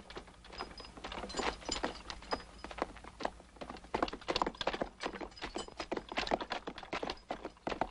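Horse hooves clip-clopping with a horse-drawn wooden wagon knocking and rattling as it rolls: a dense, irregular run of sharp knocks.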